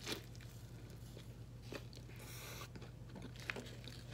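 Faint close-up chewing and biting of a sub sandwich with vegan chicken tenders: small wet mouth clicks, with a brief crackly noise about two seconds in. A steady low hum runs underneath.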